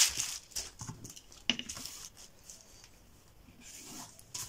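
Sheet of pattern paper rustling and crinkling in short bursts as it is handled and smoothed flat, with a wooden ruler being laid on it. The rustling is loudest at the start and dies down through the middle.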